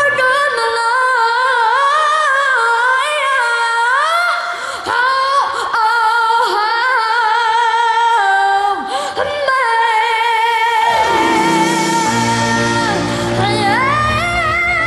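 A boy singing a high melody into a microphone, with vibrato on the notes, over light accompaniment; about eleven seconds in, fuller backing music with bass comes in while he holds a long note.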